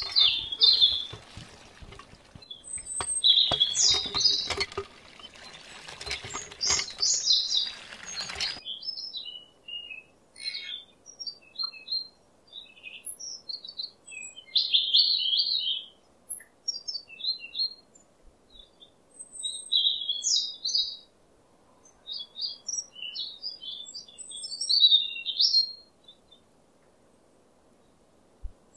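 Small birds chirping in short high phrases throughout. For the first eight or so seconds a trickle of water splashes in under them, then cuts off abruptly.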